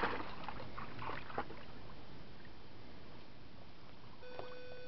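Steady wash of water in the background. About four seconds in, a rubber squeaky toy gives one long, steady high squeak that holds to the end.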